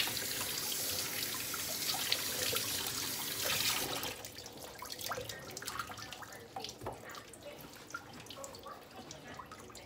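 Kitchen faucet running, its stream splashing over a wet puppy's coat into a stainless steel sink, turned off about four seconds in. Drips and small splashes follow as water runs off the puppy.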